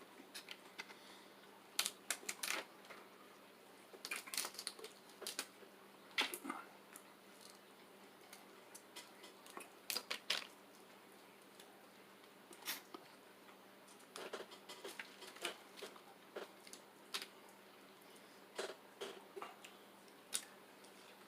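Close-up eating of a seafood boil: irregular sharp cracks and clicks of shells being broken, with wet smacking and chewing, coming in clusters with quiet gaps between.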